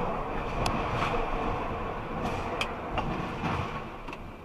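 Steady road noise of a moving vehicle picked up by its dashcam, with several sharp clicks and knocks.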